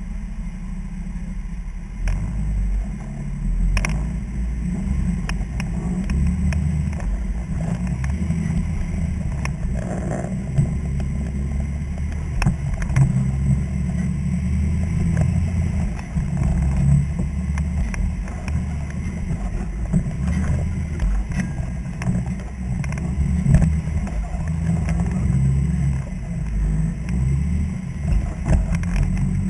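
Off-road vehicle's engine running low and unevenly, rising and falling under load as it crawls over rocks, with now and then a sharp knock.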